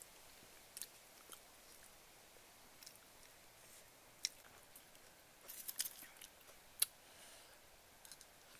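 A person eating soft braised potatoes from a spoon: faint chewing and mouth smacks, heard as scattered short clicks with a quick cluster a little past the middle and one sharper click shortly after.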